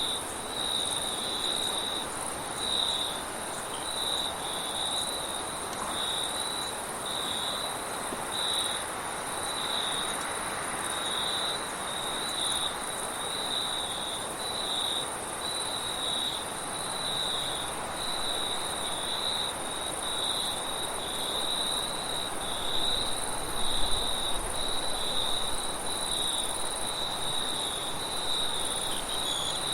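Chorus of crickets at night: steady, evenly pulsing high chirping over a continuous higher-pitched trill, with a soft wind hiss beneath. A brief louder low rumble comes about three-quarters of the way through.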